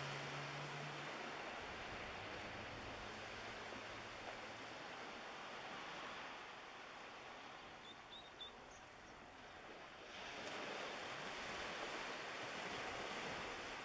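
Seaside ambience: a steady hiss of small waves washing on the shore, easing for a few seconds midway and rising again after about ten seconds. A low motor hum fades out about a second in, and a few faint high chirps come around eight seconds in.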